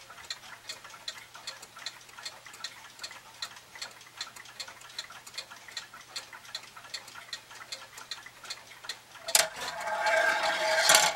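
Plastic ball clock's motor-driven ball-lifting mechanism ticking steadily, about three clicks a second. Near the end a sharp loud clack is followed by a louder, rising clatter.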